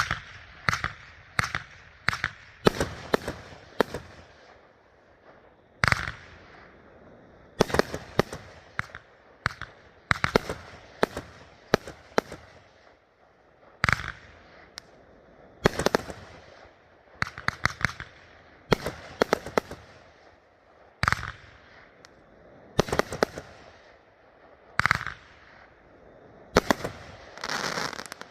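A 25-shot, 500 g Riakeo Max Load #30 firework cake firing: sharp bangs, some single and some in quick rapid clusters, with a stretch of dense crackling near the end.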